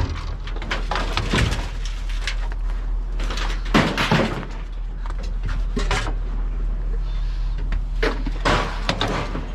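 Scrap metal clanking and banging in a string of irregular impacts as it is unloaded onto a scrap pile, over a steady low engine hum.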